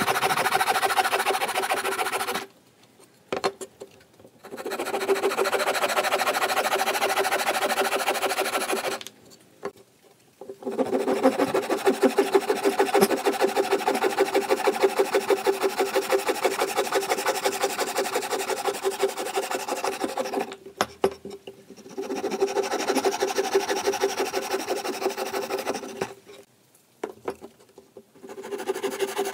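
Hand saw cutting through a pallet-wood strip with rapid, even back-and-forth strokes, in five runs broken by short pauses as each small block is cut off and the next cut is started.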